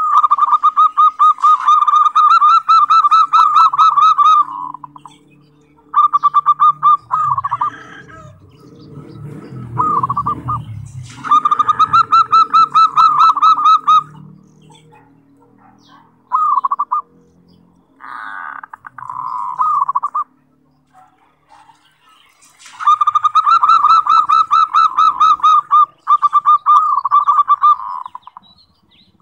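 Zebra dove (perkutut) singing: phrases of rapid, trilled cooing notes, repeated over and over with short pauses between them. A low muffled noise sits under the song near the middle.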